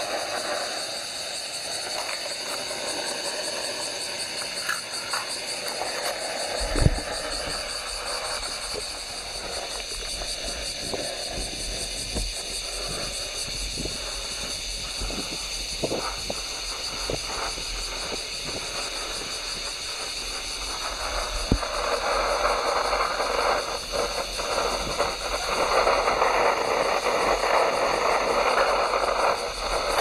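Gusting wind buffeting the microphone, with a sharp thump about a quarter of the way in, over the steady hiss of a US military M-1942 gasoline camp stove's burner; the hiss grows louder in the last third.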